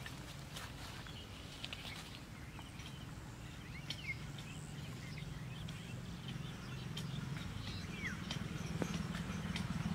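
Outdoor ambience: a steady low hum that grows louder toward the end, with scattered faint clicks and a couple of short chirps.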